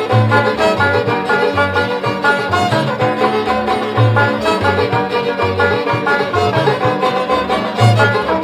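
Background instrumental music with a bass line that steps between notes about every half second.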